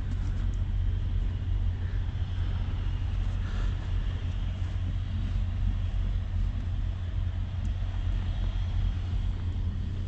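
Cummins ISX diesel in a 2008 Kenworth W900L idling, a steady low rumble, with faint hiss over it.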